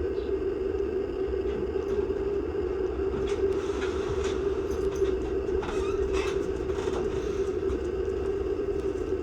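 Breezy outdoor ambience: a steady low rumble of wind on the microphone under a constant hum. Faint scattered clicks and taps come through in the middle.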